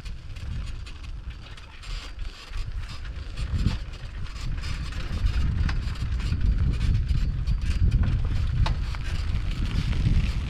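Bicycle ride on a forest track: wind rumbling on the microphone, with scattered clicks and rattles from the bike and the ground under the wheels.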